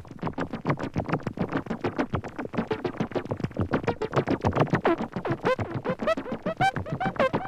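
Electronic synthesizer music: a fast run of short, clipped notes, joined from about five seconds in by notes that swoop in pitch.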